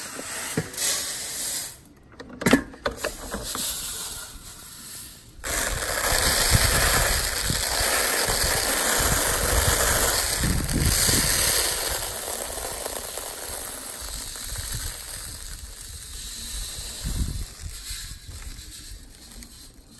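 Wind rushing over the microphone while acacia seed is poured out to winnow it in the breeze: a steady hiss with a low rumble. It swells suddenly about five seconds in and eases off gradually over the second half.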